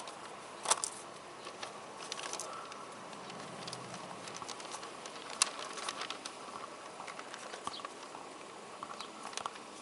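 Irregular small clicks, taps and rustling of things being handled and a plastic bag being worked during a car search, with two sharper clicks, one near the start and one about halfway through.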